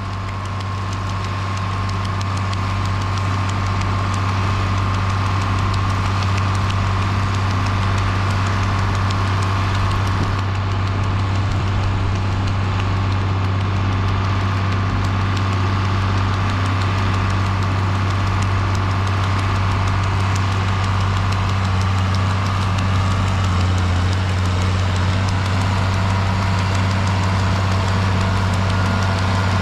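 John Deere 4640 tractor's 7.6-litre turbocharged six-cylinder diesel running steadily under load while pulling a PTO-driven manure spreader that is throwing out manure. The sound fades in over the first few seconds.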